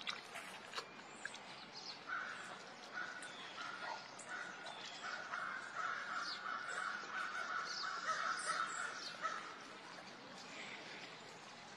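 Golden tiger gnawing a meaty bone, with short wet cracks and crunches as its teeth work the bone. A steady mid-pitched sound comes and goes in the background from about two seconds in and holds until about nine seconds in.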